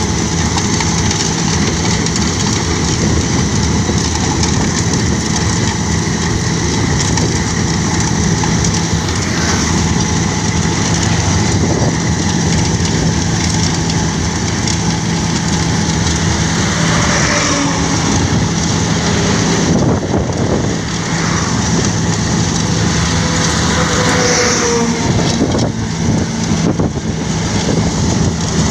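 Wirtgen W 130 F cold milling machine running, its diesel engine giving a loud, steady machine noise with a constant low hum.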